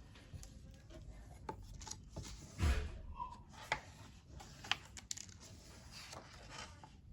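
Soft paper rustling and handling noises as a book's pages are turned, with a light thump about two and a half seconds in.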